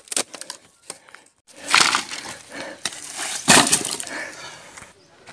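Pieces of split firewood knocking and clattering together as they are picked from a pile and stacked into a woven bamboo basket. There are two louder clatters, about two seconds and three and a half seconds in.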